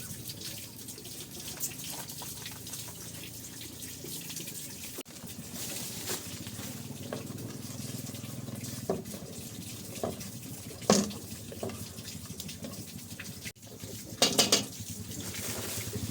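Water running steadily, with a few sharp knocks or clinks in the second half, the loudest about eleven seconds in.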